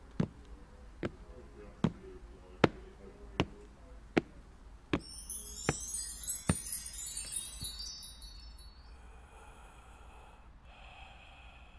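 Evenly paced footsteps, a little more than one a second. About five seconds in they give way to a sparkling chime cascade, a magical sound effect marking an enchanting scent, which settles into soft held chime tones.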